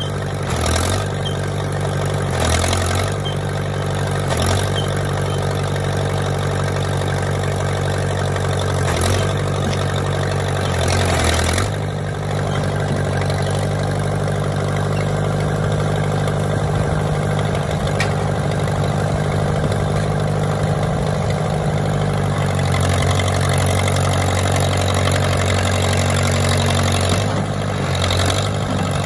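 Engine of a 310B tractor loader-backhoe running steadily while its backhoe and front loader are worked, the engine note shifting as the hydraulics load it. Several short louder bursts of noise come in the first dozen seconds and again near the end.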